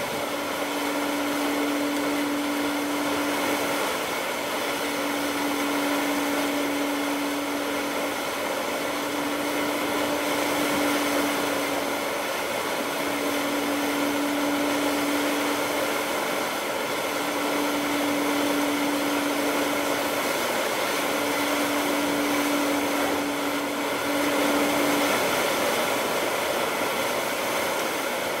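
Steady rushing hiss of air and machinery aboard a ship under way. A low steady hum sounds in repeated stretches of about three seconds with short gaps, then stops near the end.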